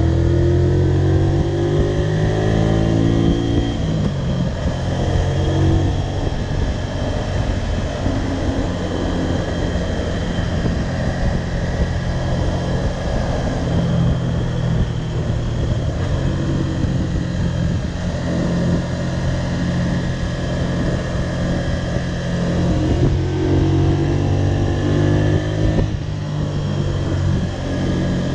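Honda VTR250's 250 cc V-twin engine running during a ride, climbing in revs in the first few seconds and again near the end, with wind rush at speed through the middle.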